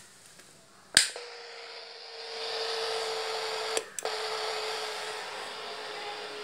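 A wall switch clicks on about a second in. A steady electronic whine and hiss follow, cutting out briefly with a click just before four seconds in.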